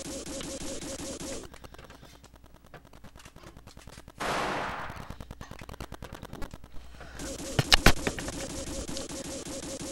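Roblox game sound effects played back from a video: a fast, machine-gun-like run of hits throughout, with a short burst of noise about four seconds in and two sharp, loud cracks near eight seconds.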